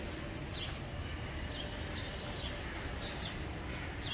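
A small bird chirping repeatedly, short falling chirps about twice a second, over a steady low background rumble.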